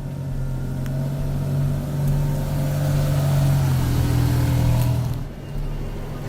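A car engine running steadily, growing louder through the middle and easing off about five seconds in.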